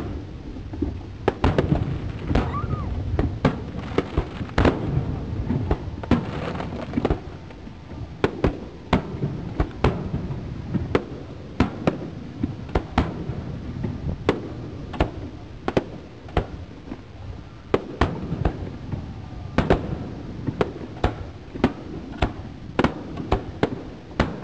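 Aerial firework shells bursting in a dense, irregular barrage: sharp bangs, sometimes several a second, over a continuous rumble of further bursts and their echoes.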